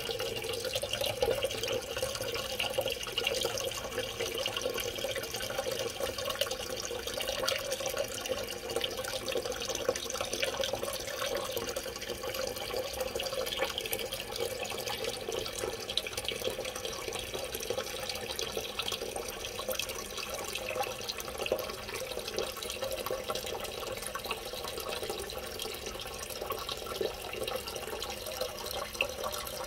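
Toilet tank refilling through its fill valve: a steady rush of running water into a large 3.5-gallon tank that is still filling.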